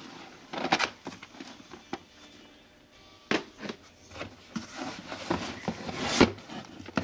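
Hard plastic videotape cases clacking and sliding against each other and the cardboard box as they are handled. The knocks and scrapes are irregular, with a sharp knock about three seconds in and the loudest ones just after six seconds.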